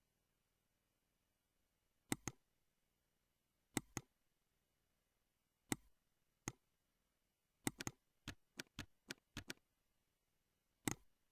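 Computer mouse clicks, several in quick pairs, then a rapid run of about nine keyboard keystrokes about eight seconds in, typing a word, and one last click near the end. Faint, against near silence.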